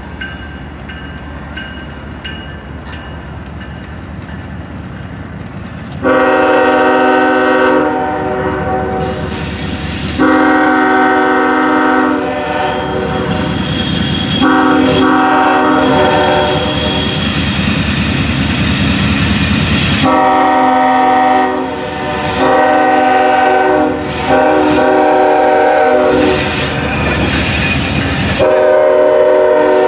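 Norfolk Southern freight locomotive approaching with a low diesel rumble, then sounding its multi-chime horn from about six seconds in: a chord of several tones in a string of long blasts with short breaks between them, running on as the locomotives pass close by.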